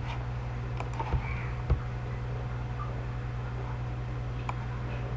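Computer mouse clicking a few times, with two low thumps between one and two seconds in, over a steady low electrical hum.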